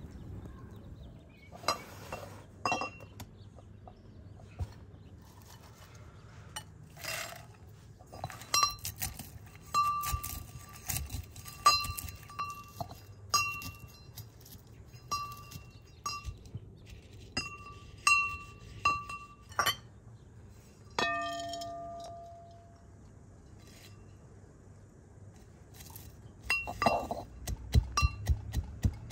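Pestle striking a brass mortar while crushing walnuts: repeated sharp metallic clinks that ring briefly. One strike about two-thirds of the way through rings lower and longer, and quicker, duller pounding comes near the end.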